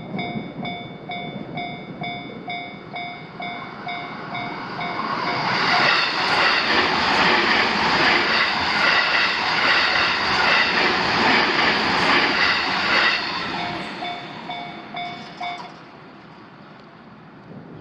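Japanese level-crossing warning bell ringing in rapid, evenly repeated electronic clangs while a JR Sobu Main Line train passes over the crossing, loudest for about eight seconds in the middle. The bell is heard again once the train has gone and stops a couple of seconds later.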